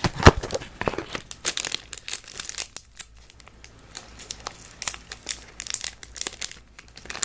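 Plastic snack bag crinkling and crackling as it is handled and torn open, with a sharp crackle about a quarter second in.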